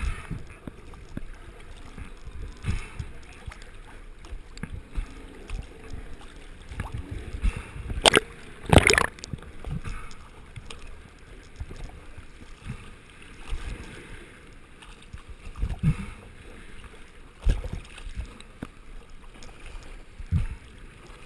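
Choppy sea water sloshing and slapping against a camera held at the surface, with irregular low thumps from waves hitting it. A loud splash comes about eight seconds in.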